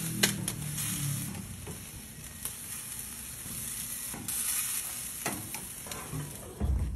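Chicken wings sizzling on a hot grill grate, a steady hiss, with several sharp clicks of metal tongs against the grate as the wings are turned.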